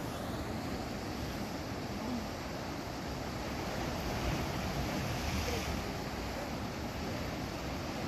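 Sea surf washing against shoreline rocks: a steady rushing noise that swells a little around the middle.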